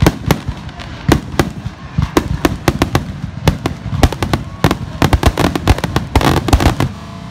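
Aerial fireworks bursting overhead: a quick, irregular string of sharp bangs and crackles that crowd together near the end.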